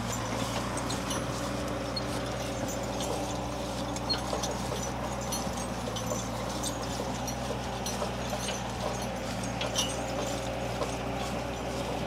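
Draft horse team pulling hay wagons over a grassy field: irregular clopping of hooves and knocks and rattles of the wagons over a steady low hum.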